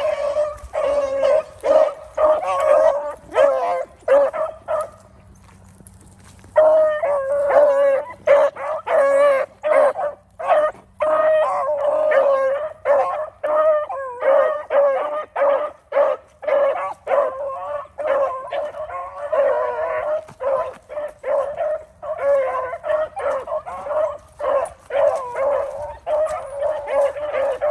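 A pack of beagles baying as they run a rabbit's track, a dense run of overlapping howling cries. There is a lull of about a second and a half about five seconds in.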